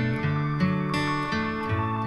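Guitar music playing through a Hiddenradio 2 Bluetooth speaker, a string of plucked notes over a steady bass line.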